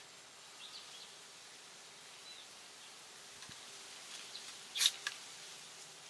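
Small metal clicks from a red canister camping stove being handled in gloved hands as its folding pot supports are opened out: a few faint ticks, then a sharp double click about three-quarters of the way in, over a faint steady hiss.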